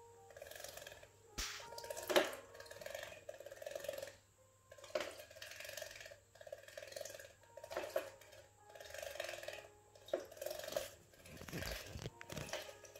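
Java sparrow bathing in a clip-on cage bird bath, splashing in the water and throwing spray against the clear plastic hood, in repeated short bouts about every second or two, with a few sharp clicks.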